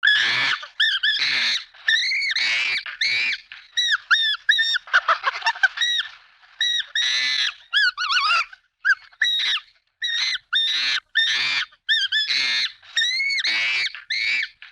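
Monkey sound effect: quick runs of short, high-pitched calls, each arching up and down in pitch, mixed with a few harsher screeches.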